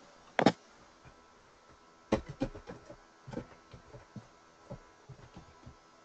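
Computer keyboard keystrokes: a single click about half a second in, then a run of irregular key taps from about two seconds in.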